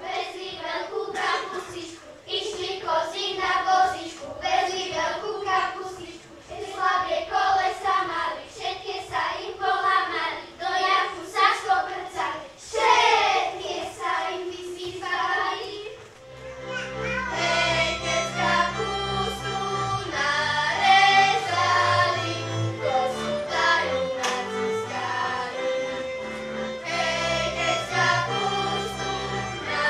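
Children's choir singing a Slovak folk song together. About halfway through, instrumental accompaniment with a bass line and fiddle comes in under the singing.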